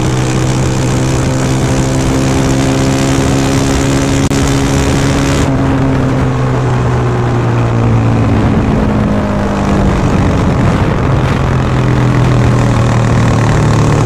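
KTM Duke 390's single-cylinder engine running under way through a Remus S-Flow exhaust with its silencer insert fitted. The engine note falls gradually over the first half, then holds steady.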